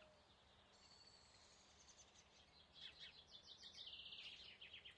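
Near silence with a faint songbird singing: a thin high whistle in the first half, then a quick run of repeated high chirps from a little past halfway.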